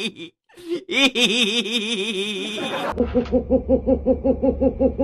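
Laughing: a wavering, pitched laugh, then after about three seconds a steady run of quick laughing pulses, about four a second, over a low hum.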